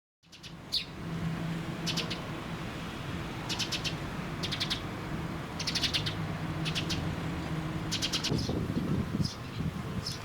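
Eurasian tree sparrows chirping: short clusters of quick, high chirps repeated about every second, over a steady low hum.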